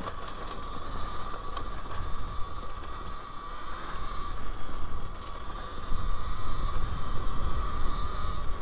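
Talaria Sting R MX4 electric dirt bike under way on a dirt trail: a steady high whine from the electric drive over rumbling wind and tyre noise. It gets louder about six seconds in.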